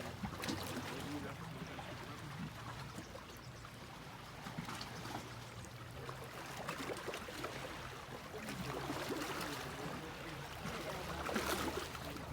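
Sea waves washing onto a sandy beach, a continuous rushing wash that swells as waves break, most strongly about nine and eleven seconds in.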